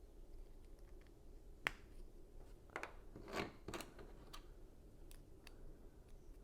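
Lego pieces being handled and pressed together: a scattering of sharp plastic clicks, a louder cluster in the middle.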